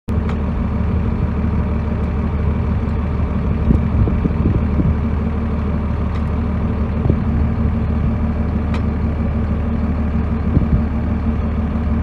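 An engine idling steadily, with a few faint clicks over it.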